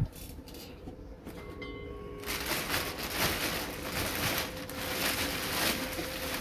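Clear plastic bag crinkling and rustling as it is pulled down off a heavy unit, starting about two seconds in, after a sharp click at the start.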